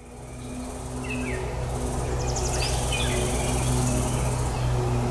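Woodland ambience fading in: a steady low hum under a high insect drone, with a few short falling bird chirps and a quick trill near the middle.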